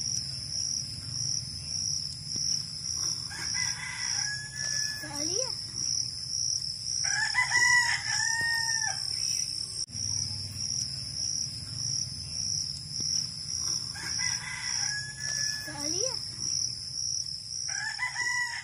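Roosters crowing four times, spaced several seconds apart, over a steady high-pitched pulsing chorus of insects.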